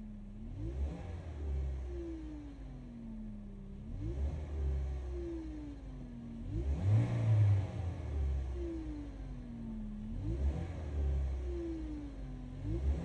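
Great Wall Florid 1.5 VVT engine blipped from idle about five times, roughly every three seconds, heard from inside the cabin. A clear whine rises with each rev and sinks slowly as the revs fall. The mechanic puts the whine down to low oil in the gearbox or low fluid in the power steering pump, not to the pump people blame.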